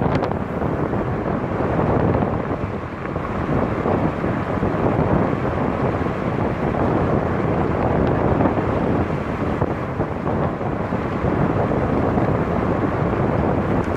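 Wind rushing over the microphone of a camera on the roof of a moving car, with the car's tyre and road noise underneath: a steady, dense rush.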